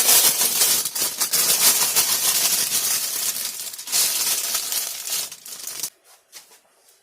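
Dense crinkling and rustling as bean sprouts are handled from their plastic bag and piled into the pot, stopping abruptly about six seconds in.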